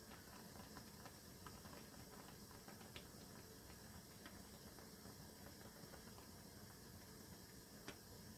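Near silence: faint bubbling of noodle water boiling in a pan on a portable gas stove, with a few soft ticks.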